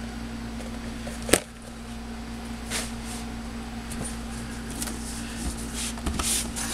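Cardboard model-kit box being handled and put down, with a single sharp knock about a second in and faint rustles of cardboard afterwards, over a steady low hum.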